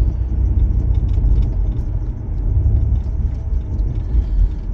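Steady low rumble of road and engine noise inside a moving van's cabin.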